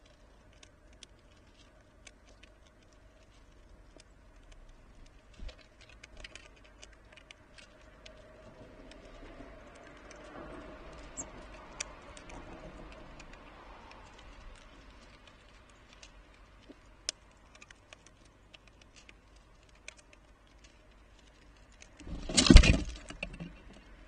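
Ezo red squirrel at a wooden feeder: a steady scatter of small clicks and taps as it handles and cracks seeds on the tray. A little before the end comes a loud rustling burst of about a second, as it clambers across the feeder.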